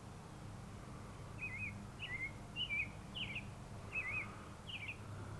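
A small songbird singing a series of about six short, warbling chirps in quick succession, over a faint steady low hum.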